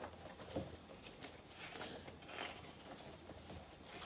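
Pages of a softcover book being leafed through by hand: faint, scattered paper rustles and flicks.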